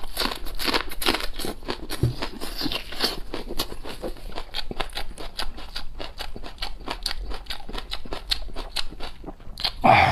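A person chewing a mouthful of raw Chinese green onion close to the microphone: crisp, crackly crunching, several crunches a second.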